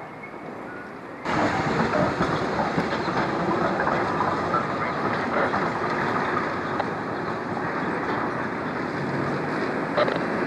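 Vintage streetcar rolling slowly through a track curve, its wheels clattering over the rails, mixed with street noise. The sound jumps up sharply about a second in, after a quieter first second of street sound.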